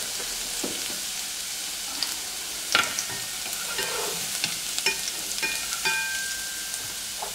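Minced garlic sizzling steadily in hot cooking oil, being fried until fragrant and golden. Wooden chopsticks stirring it tap and scrape against the pot several times, the sharpest tap a little under three seconds in.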